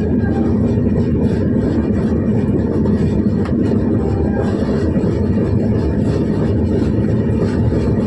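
Steady, loud rumble of a moving train.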